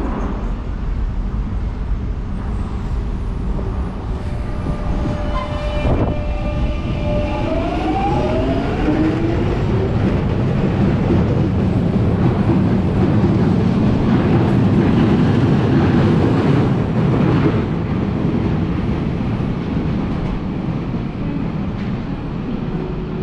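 A London Underground 1996 Stock train on the Jubilee line pulling away from a platform. A steady tone comes in about five seconds in, followed by a single knock. The traction whine then glides upward in pitch as the train accelerates, over a growing rumble of wheels on rail that swells and then eases off near the end.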